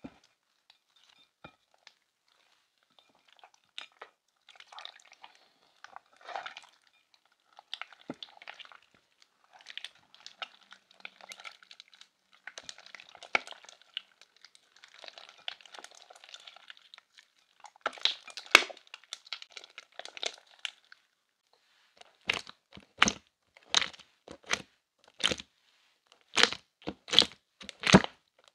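Sticky slime being kneaded and stretched by hand, mixed with makeup: soft wet squishing and crackling, then, in the last quarter, a run of loud sharp pops, about two a second, as air pockets in the slime are pressed out.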